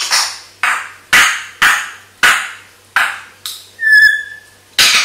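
African grey parrot giving a run of short, harsh calls, about two a second, each cut off and fading quickly, with one clear whistle about four seconds in.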